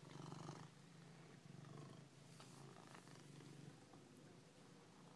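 A domestic cat purring faintly, in long pulsing stretches broken by short pauses.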